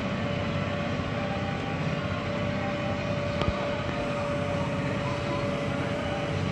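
Tractor engine running steadily, heard from inside the cab, with a constant whine over it and a single click about three and a half seconds in.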